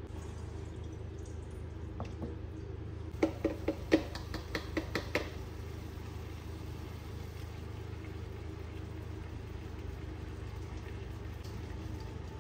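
A steady low hum, with a quick run of about eight light taps or clinks, each ringing briefly, about three seconds in and lasting about two seconds.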